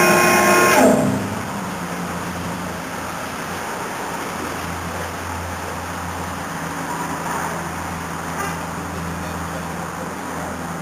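A loud, high whining machine winds down in pitch and stops about a second in, leaving a steady, quieter low rumble.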